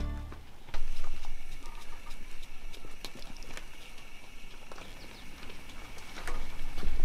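Blue wildebeest hooves stepping and shuffling on dry, stony ground: many small irregular clicks and taps over a faint steady high hum.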